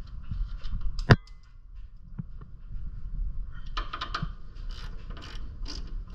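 Hand tools working on a shock-absorber mount: a ratchet wrench with a 15 mm socket clicking as the bolt is loosened, with one sharp metal clank about a second in.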